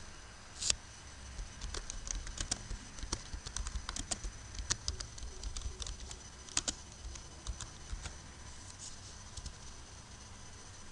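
Computer keyboard typing: irregular key clicks as a short line of text is typed, with a sharper click about a second in.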